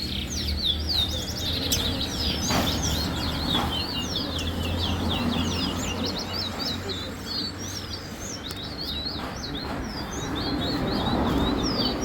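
Two caged songbirds singing against each other in a song race: an unbroken stream of quick, high chirping phrases, with a steady low hum underneath.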